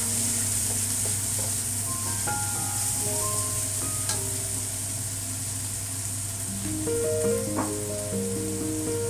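Shrimp and diced vegetables sizzling steadily in a hot nonstick wok, stirred and scraped with a spatula, with a few light clicks of the spatula. Background music notes play over it.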